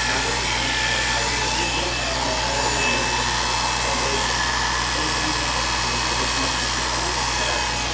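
Corded electric hair clipper running with a steady buzz while its blade cuts through hair on the back and side of the head.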